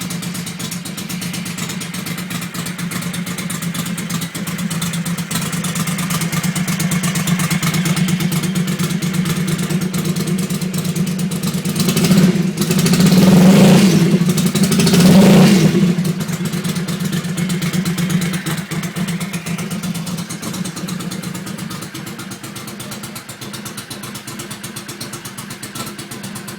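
Ducati 750 F1's air-cooled 90-degree V-twin running on its first start after an engine rebuild, idling steadily with a fast even pulse. Two throttle blips raise the revs about twelve and fifteen seconds in, then it drops back to idle.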